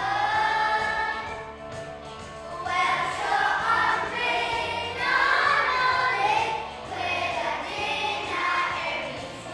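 A group of young children singing together over a recorded backing track with a steady low beat.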